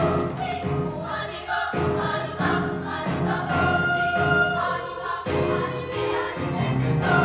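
Children's choir singing.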